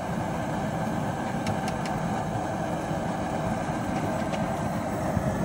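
Steady low rushing roar from the outdoor seafood-boil pot at a rolling boil over its burner, with a couple of faint clicks about a second and a half in.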